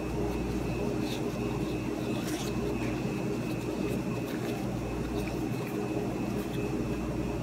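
Steady machine hum with a thin high whine, with a few faint soft scrapes as gloved hands roll dough balls in a bowl of breadcrumbs.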